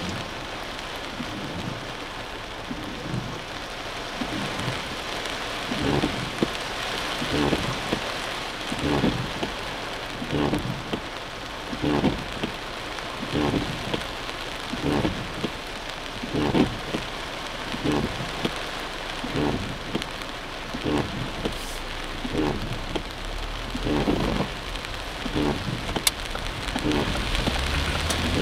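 Heavy rain drumming on a car's roof and windshield, heard from inside the cabin, with a regular swish-thump about every second and a half from the windshield wipers.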